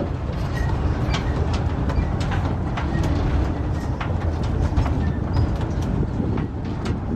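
Open-sided tour tram heard from on board while it is moving: a steady low rumble of the vehicle running over the path, with frequent light clicks and rattles from its frame and fittings.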